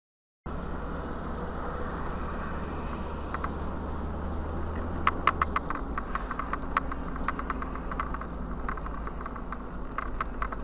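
Road and engine noise inside a moving car, recorded by a dashcam: a steady rush with a low engine hum. Short sharp ticks come from about three seconds in and grow frequent in the second half.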